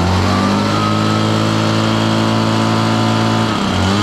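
Redmax EBZ7500 leaf blower's two-stroke engine revving up from idle as the throttle trigger is pulled, holding steady at speed, then dipping briefly near the end and picking up again.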